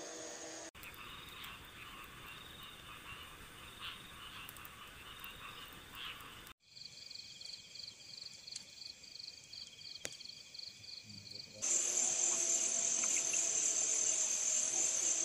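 Night chorus of crickets and other insects with frogs croaking, in several short pieces that change abruptly. One piece has a high, regularly pulsing chirp. The last few seconds hold a louder, steady high trill.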